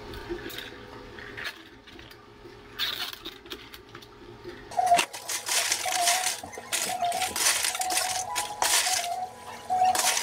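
Ice cubes dropped into clear plastic cups, a clatter repeating about once a second from about halfway in. Before that, quieter handling of a cardboard drink carrier.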